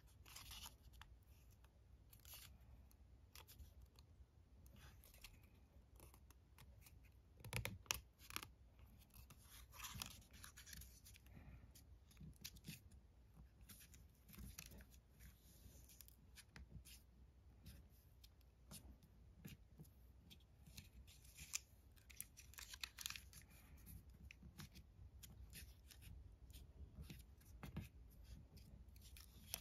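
Faint rustling and crinkling of origami paper as it is folded, creased and pressed flat by hand, with scattered small clicks and a louder crinkle about eight seconds in.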